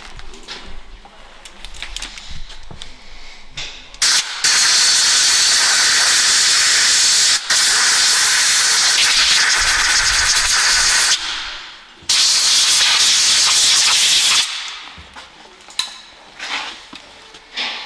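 Compressed-air blow gun blasting air onto a brake caliper piston to dry it. A loud hiss starts about four seconds in and runs about seven seconds with a couple of brief breaks, then a second blast of about two and a half seconds follows.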